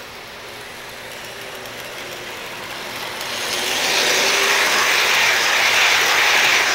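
O-scale model passenger train rolling on three-rail track, its metal wheels clattering and rumbling on the rails. The sound grows louder as the train comes up and is loudest for the last few seconds as the cars pass close by.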